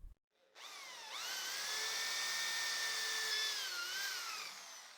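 Electric drill fitted with a 10 mm dowel-cutting bit, spinning up with a rising whine and running at steady speed. Its pitch dips twice before it fades out near the end.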